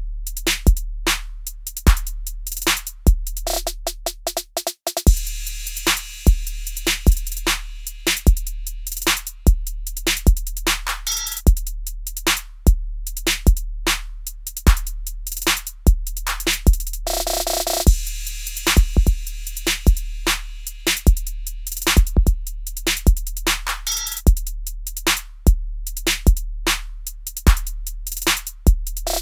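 Electronic music with a drum-machine beat: regular kick and snare hits about twice a second over a deep sustained bass, the bass dropping out briefly about five seconds in.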